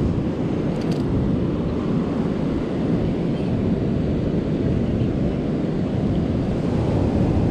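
Steady low rumble of wind buffeting the microphone, mixed with the wash of ocean surf, with a couple of faint clicks about a second in.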